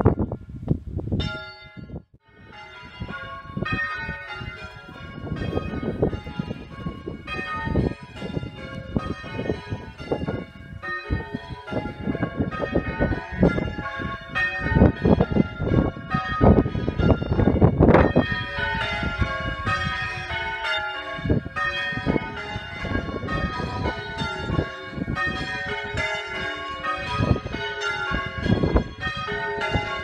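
A light ring of five church bells (5 cwt, tenor in C#, cast by Mears and Stainbank in 1909) being rung in a steady, even succession of strokes, heard from outside the tower. There is a brief gap about two seconds in before the ringing picks up again.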